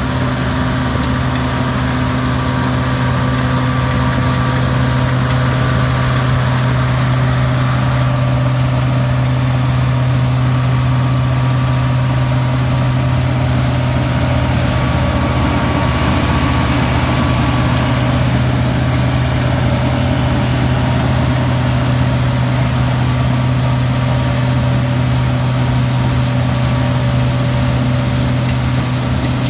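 Massey Ferguson 385's four-cylinder diesel engine and the PTO-driven wheat straw chopper it powers, running steadily together as straw is chopped and blown into the trailer. A loud, even drone with a strong low hum.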